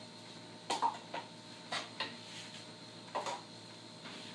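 Wooden spatula knocking and scraping against a wok as vegetables and kimchi are stirred. About five short knocks come at uneven gaps of roughly a second or less.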